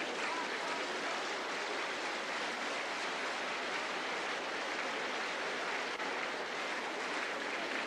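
Steady noise of a large arena crowd in the stands.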